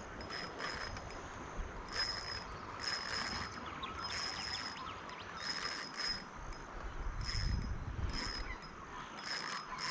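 Spinning reel's drag clicking in repeated short bursts, about eight of them, as a hooked carp pulls line off against a loosely set drag.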